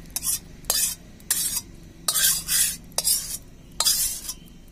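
Metal spatula scraping the inside of a steel kadai to push thick chola-matar ghugni out into a steel bowl: about seven short, rough scrapes, some starting with a sharp metallic click.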